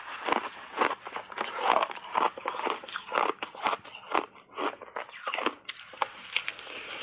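Close-miked crunching and chewing of big mouthfuls of blended shaved ice, a rapid, irregular run of crisp crunches.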